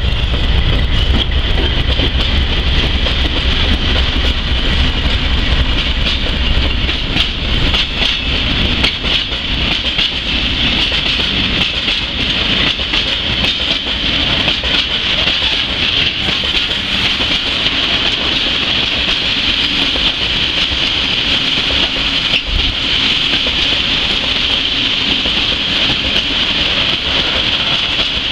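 Loaded tank wagons of a freight train rolling slowly past, steel wheels clacking over the rail joints with a steady high-pitched ring over the rolling noise. The deep rumble of the Škoda class 181 electric locomotive at the head fades over the first few seconds as it moves away.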